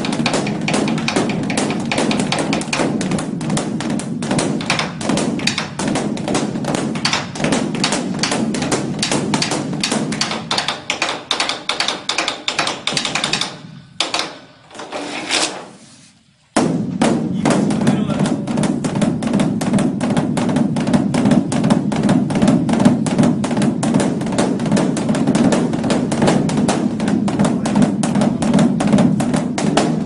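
Large Korean Buddhist temple drum (beopgo), its cowhide head beaten rapidly with two wooden sticks in a continuous roll of several strokes a second, the rhythm of the dawn ritual drumming. The strokes thin out and nearly stop about halfway through, then after a pause of about three seconds the roll starts again suddenly at full strength.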